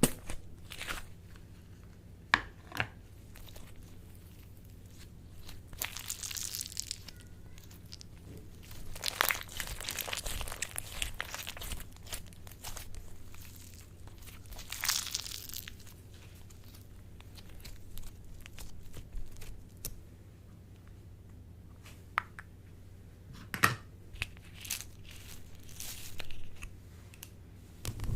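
Slime being squeezed and worked, crackling and crinkling, with scattered sharp clicks and several longer crackly stretches.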